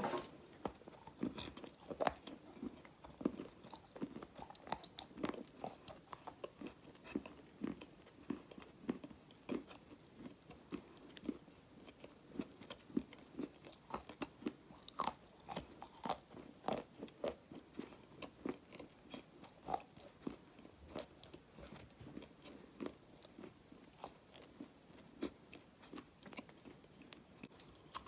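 Dry black edible clay being chewed close to the microphone: a steady run of small, crisp crunches and cracks, a couple a second.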